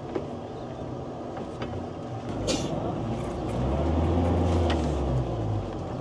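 Sailboat's inboard Yanmar 4JHE 44 hp diesel engine running at low revs during docking. Its drone swells for about a second and a half in the middle, as when more throttle is given, and there are a few light knocks.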